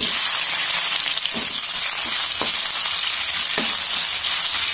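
Cut okra pieces sizzling steadily as they fry in hot oil in a pan, with a few light taps of a spatula stirring them.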